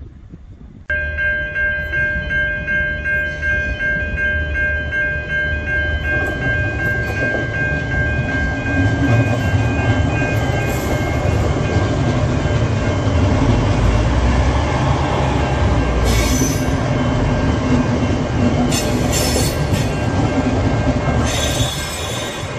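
V/Line VLocity diesel multiple unit passing slowly over the level crossing: diesel engines running and wheels rumbling on the rails, with steady high tones held from about a second in. There are short squeals from the wheels three times near the end.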